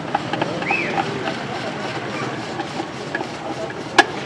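Hand-cranked spiral potato cutter turning a potato onto a wooden skewer, with scattered small clicks, over steady street traffic noise. There is a short rising-and-falling chirp under a second in and a sharp click about four seconds in.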